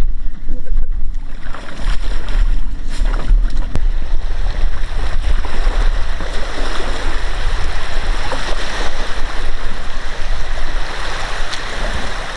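Continuous low rumble with a steady hiss across it.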